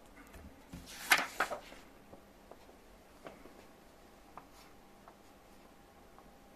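A sheet of drawing paper rustling as it is handled, a short burst about a second in, followed by a few faint taps and clicks.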